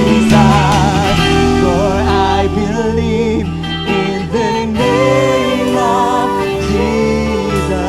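Praise and worship song: voices singing with vibrato over guitar and other instruments.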